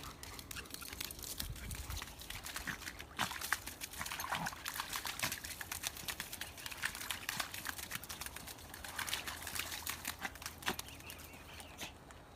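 Irregular wet splatting and pattering clicks: a Maltese dog's paws splashing and scrabbling through wet mud and puddles, tailing off near the end.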